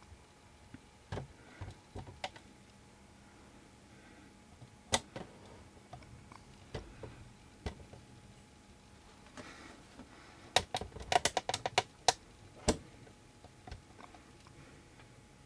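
Scattered sharp clicks and taps over a quiet indoor background, with a quick run of them about two-thirds of the way through; no thunder can be heard.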